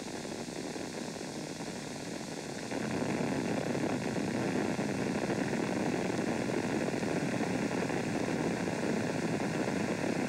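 Space Shuttle Columbia's rocket exhaust noise during its climb after liftoff, a steady rushing noise that grows louder about three seconds in.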